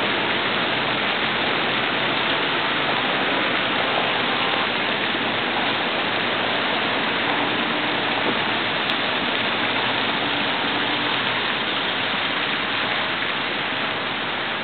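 Steady hiss of falling water from a lake's spray fountain, an even rushing with no breaks.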